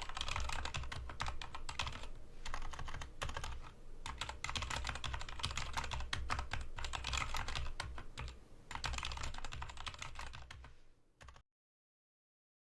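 Fast typing on an AJAZZ K685T mechanical keyboard: dense runs of key clicks and clacks with a few brief pauses. It cuts off abruptly to silence near the end.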